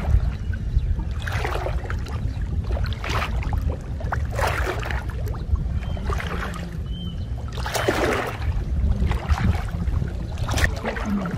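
Legs wading through shallow muddy pond water, a sloshing splash every second or so, over a steady low rumble.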